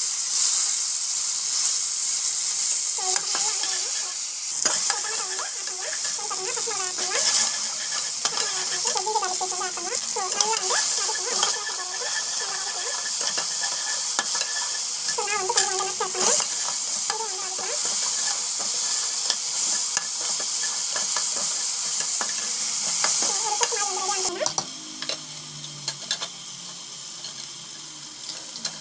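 Chopped tomatoes and spices sizzling in hot oil in a pot, with a spoon stirring and clicking against the metal. The sizzle gets quieter a few seconds before the end.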